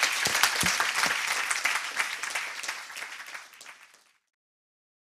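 Audience applauding. The clapping fades out and ends in dead silence about four seconds in.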